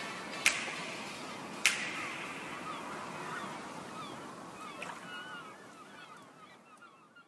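Two sharp cracks in the first two seconds, then a flock of birds giving many short squawking calls over a hiss, all fading out steadily.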